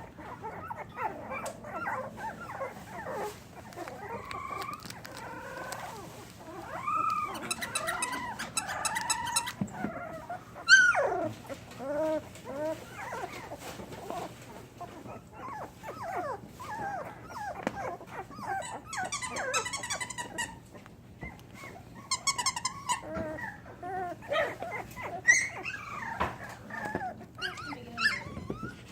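A litter of young puppies whimpering and squealing: many short, high cries from several pups at once, with one sharp squeal about eleven seconds in.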